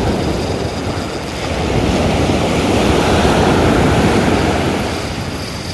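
Ocean surf rushing onto the beach, building to a wave breaking near the middle and washing back down.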